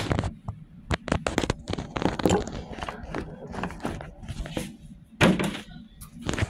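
A string of irregular thumps and knocks, with a louder cluster about two seconds in and another about five seconds in.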